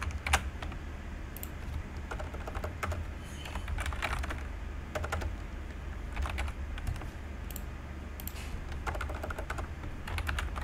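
Typing on a computer keyboard: irregular keystrokes, some in quick clusters, over a steady low hum.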